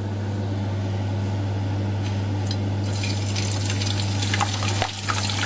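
Hot oil in a frying pan sizzling as a whole fish is lowered into it, the hiss growing much louder from about three seconds in. A steady low hum runs underneath.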